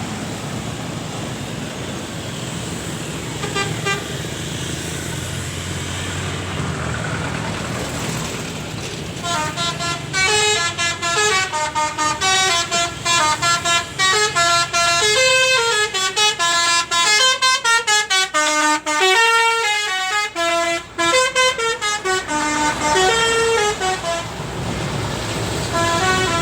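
Low engine rumble at first, then about nine seconds in a bus's telolet horn, a set of electric horn trumpets driven to play tunes, starts playing a long melody of quick stepped notes, several tones sounding together, with brief gaps between phrases.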